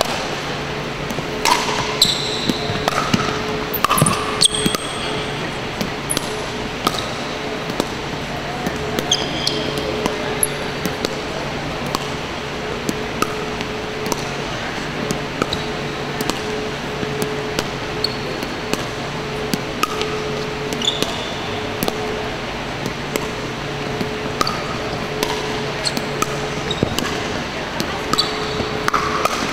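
Pickleball rally: paddles knocking the plastic ball back and forth in sharp, irregular pops, with sneakers squeaking on the hardwood court and a steady hum underneath.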